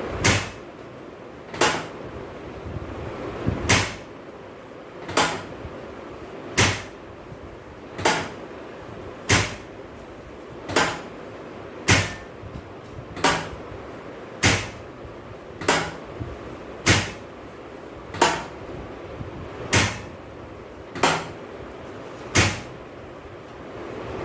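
About seventeen sharp thumps at an even pace, one every second and a half or so, from repeated thrusts during a chiropractic adjustment of the thoracic and lumbar spine.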